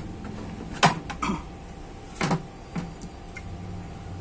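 Handling clicks and knocks from a Maktec MT583 circular saw as its bevel adjustment is worked and the steel base plate tilted by hand: about six sharp clacks, the loudest about a second in and a close double knock just after two seconds.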